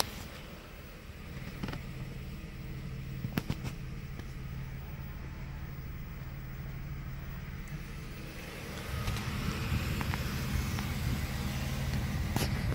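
1989 Buick Reatta's 3.8-litre V6 idling steadily at about 750 rpm, a low even hum that grows louder from about nine seconds in. A few sharp clicks come about two and three and a half seconds in.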